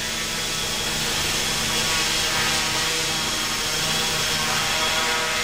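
Quadrotor drone's propellers and motors whirring steadily in flight, a dense whine of several pitches over a rushing hiss.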